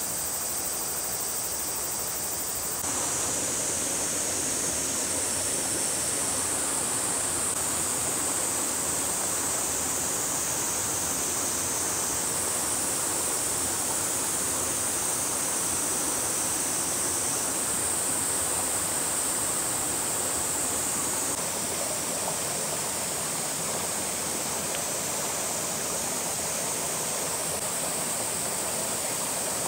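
Steady rushing of flowing water from a stream or waterfall, a little louder from about three seconds in.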